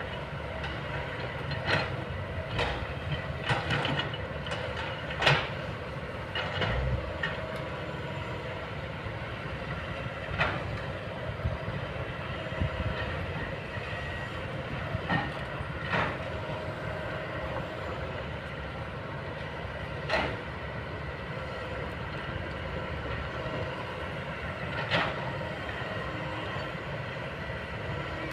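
Kobelco long-boom excavator's diesel engine running steadily, with sharp metallic clanks every few seconds.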